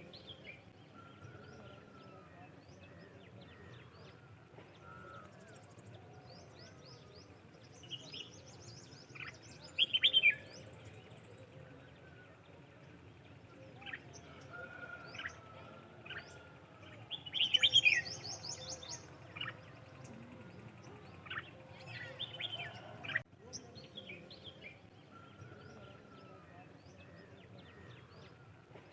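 Several birds chirping and calling, short scattered chirps and quick trills, with two louder bursts of rapid chirping about ten and eighteen seconds in, over a low steady outdoor background hum.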